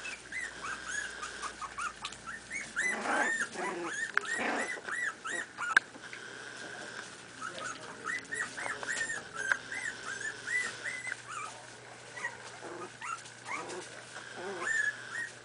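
Miniature pinscher puppies about four and a half weeks old yipping and squealing in many short, high-pitched calls as they wrestle in play.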